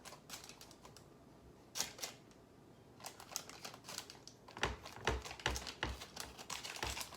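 Irregular light clicks and taps of a spoon against a glass baking pan as the crust dough is pressed flat, coming thicker from about halfway, some with dull low bumps.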